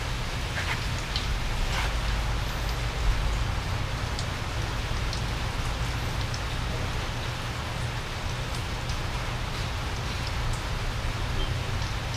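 Steady rain falling, with scattered drops ticking, over a low steady rumble.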